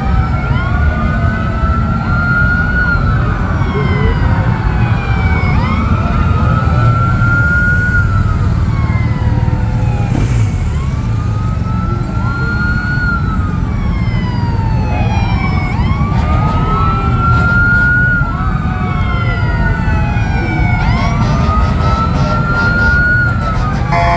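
Several police motorcycle sirens wailing out of step with one another, each rising and then falling about every five seconds, over a steady low engine rumble.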